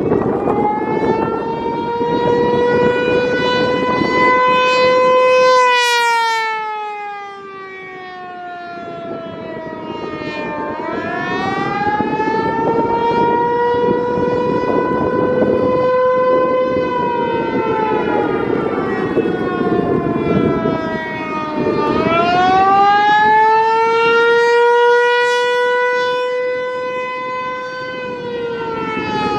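American Signal T-128 outdoor warning siren sounding during its scheduled test. Its steady pitched tone climbs, holds high, then sags and climbs again, three times over, while its loudness swells and fades.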